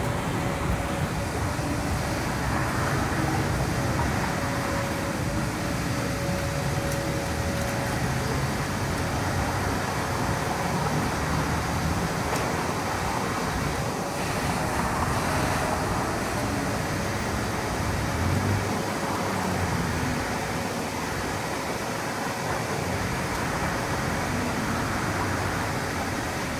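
Steady outdoor background noise, with a faint steady hum through roughly the first half.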